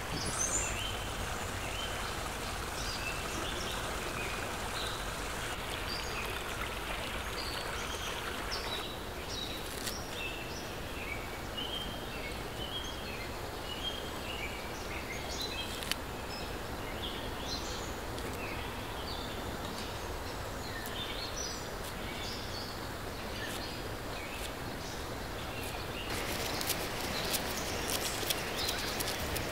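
Small birds chirping repeatedly over steady outdoor background noise. Near the end, a knife chops leafy greens on a wooden stump in a quick run of sharp taps.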